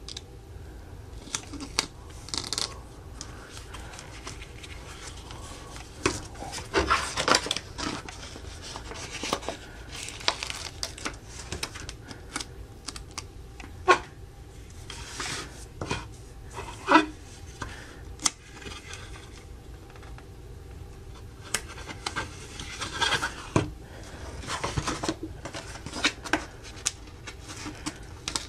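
Hands handling and fitting together plastic toy parts: scattered sharp clicks and snaps with scrapes and rustling.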